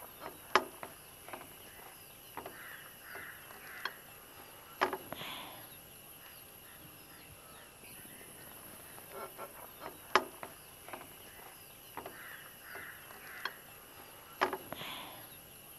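Steel knife blade clicking against a glass serving plate as it cuts through a baked parotta chatti pathiri, about six sharp clicks spread out, with faint bird calls in the background.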